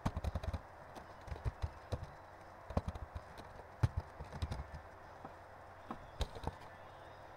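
Computer keyboard typing: short runs of quick keystrokes with pauses between them.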